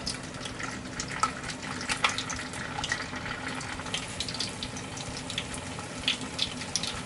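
Battered tofu-and-mountain-yam fillet deep-frying in hot oil in a small pot, just lowered in: a steady sizzle full of small crackles and pops.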